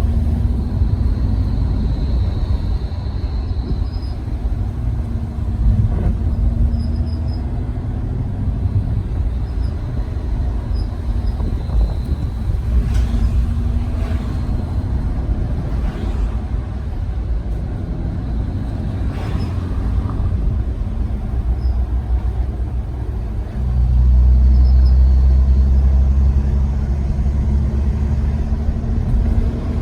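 2021 Mercedes-AMG E53 running with a steady low rumble, and faint short high-pitched chirps recurring every few seconds. The rumble swells louder for a few seconds near the end.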